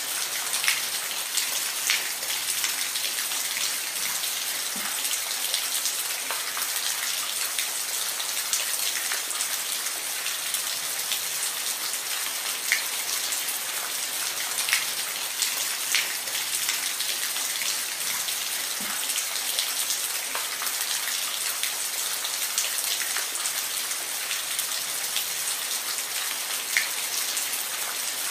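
Steady rain falling, an even hiss with scattered louder individual drops ticking on a surface.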